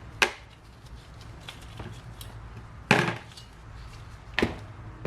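Three sharp knocks on a hard work surface during hands-on carburetor disassembly, the middle one the loudest, over a steady low hum.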